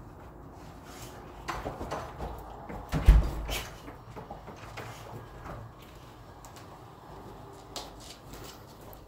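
Front door swung shut with a heavy thump about three seconds in, with scattered small clicks and knocks around it.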